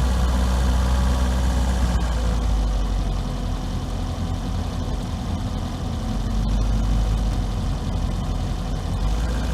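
Volvo S40 car engine running with a steady low hum. About two seconds in the sound shifts and becomes a little quieter, then swells again near the end.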